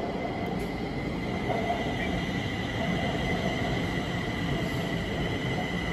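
Kaohsiung MRT metro train pulling into an underground station behind platform screen doors: a steady rumble of wheels on rail with a steady high whine over it.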